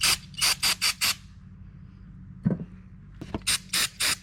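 Aerosol carburetor cleaner sprayed in short squirts onto a Can-Am's carburetor parts: five quick hisses, a pause, then four more. A single low thump comes about halfway through.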